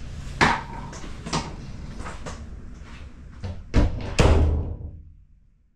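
A run of sharp clicks and knocks, then two loud bangs near the end, the second with a low booming tail that fades away to silence.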